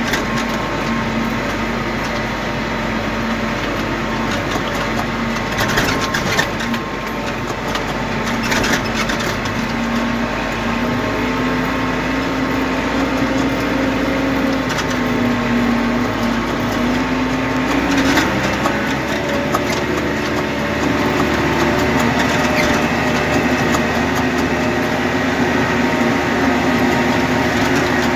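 Case 125 tractor's diesel engine running steadily under load while pulling a 44-disc harrow, heard from inside the cab. A few knocks sound over the drone, and the engine note shifts slightly higher about two-thirds through.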